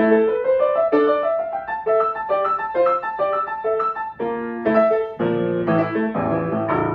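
Solo grand piano playing the closing bars of a fast tarantella: quick running notes, then from about four seconds in loud full chords struck in a row, ending on a final chord that starts to ring away.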